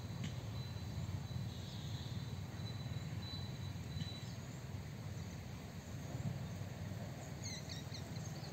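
Open-field outdoor ambience: a steady low rumble, a thin high steady insect tone for about two and a half seconds from a second and a half in, and a few quick bird chirps near the end.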